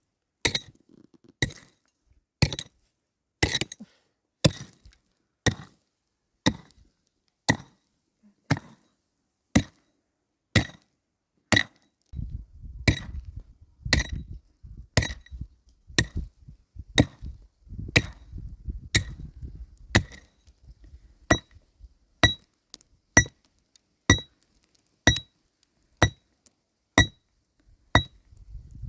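Hammer blows, struck steadily about once a second, each with a short metallic ring, as in nailing planks for a wooden roof. A low rumbling noise runs under the blows through the middle stretch.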